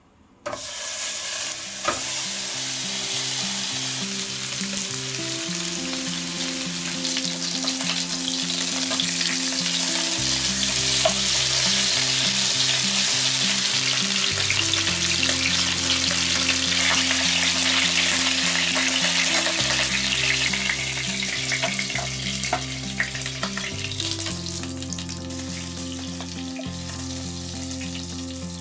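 Slabs of pork belly sizzling in hot fat in a non-stick frying pan as they fry to golden brown, a dense hiss with scattered crackles. It starts suddenly about half a second in, grows louder through the middle and eases off near the end.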